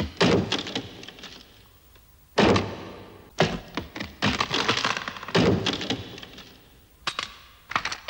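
Cartoon sound effects: a run of sudden knocks and crashes, each dying away over about a second, with a big hit about two and a half seconds in and a quick cluster of hits in the middle.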